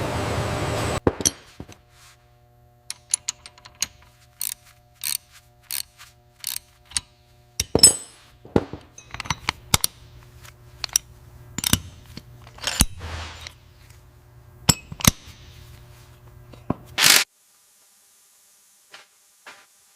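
Metal tools clinking and clicking irregularly in a workshop over a low steady hum, after a loud hiss of air in the first second. A short loud burst comes near the end, then it falls almost quiet.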